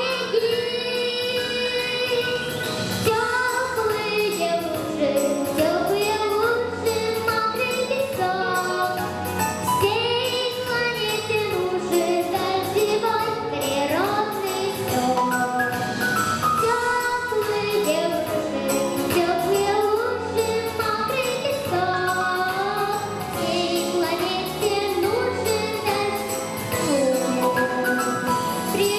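A female voice singing a song with sustained, gliding melodic lines over a continuous instrumental accompaniment.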